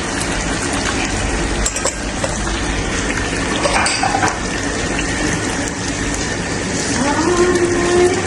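Onions sizzling as they fry in a pan, a steady hiss with a few clinks of a utensil against the pan.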